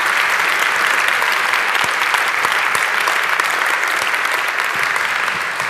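Audience applauding: steady, dense clapping from many people.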